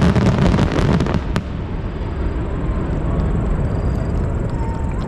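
Aerial fireworks crackling densely, ending with one sharp crack about a second and a half in, then a steady low rumble.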